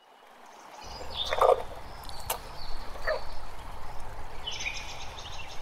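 Outdoor ambience fading in, with a steady low rumble under a few short animal calls: one about a second and a half in, another near three seconds, and a shriller, wavering call near the end.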